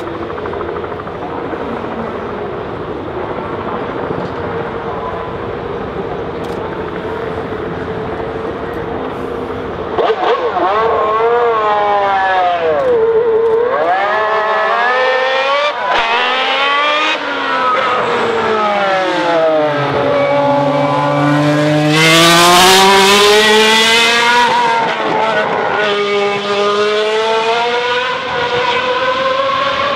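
Historic Formula 1 car engine idling steadily for about ten seconds, then revved hard in repeated rising and falling sweeps. It accelerates away, its pitch climbing and dropping with each gear change, loudest about two-thirds of the way through.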